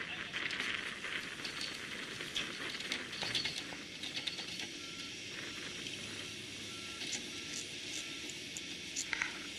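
Construction machinery at work: a steady hiss of engine and machine noise with scattered clicks and knocks. In the middle there is a faint high beep repeating about every three-quarters of a second.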